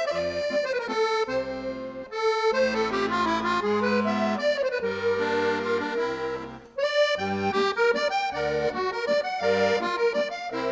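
Background music: a melody over steady bass chords, with a brief break about seven seconds in.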